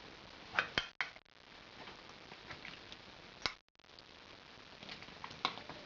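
A few faint, scattered clicks of a metal ladle knocking against the cooking pot and bowl as whole boiled onions are scooped out of the broth.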